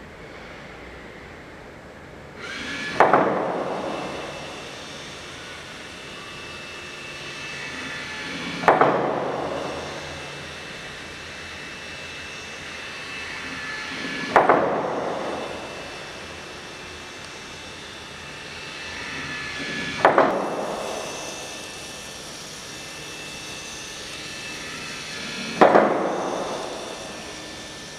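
Five loud crashing impacts, roughly every five to six seconds. Each is preceded by a gradual swell and followed by a long ringing decay with several sustained tones.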